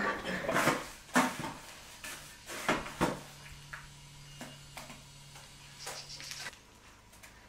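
Scattered scrapes and light knocks of mortar being worked from a plastic bucket, with a low steady hum for a few seconds in the middle.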